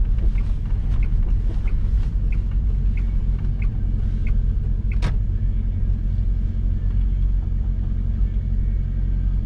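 Inside the cabin of a 1995 Volvo 480 Turbo at low speed: the turbocharged four-cylinder engine and the tyres make a steady low rumble. Over it the turn-signal flasher ticks about one and a half times a second, then stops after a sharper click about five seconds in.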